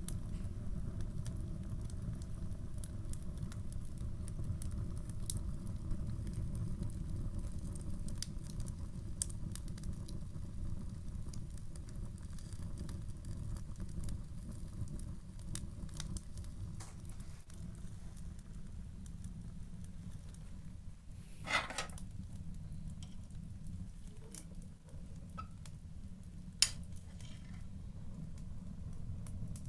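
Coal-and-kindling fire burning in a brick pechka stove: a steady low rumble of the draft with scattered small crackles and pops, and a couple of louder snaps later on.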